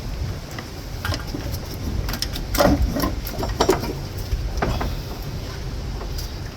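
Irregular metallic clicks, knocks and scrapes as the Nissan QG18DE's cylinder head is worked loose and lifted off the engine block, with a few louder knocks about three seconds in.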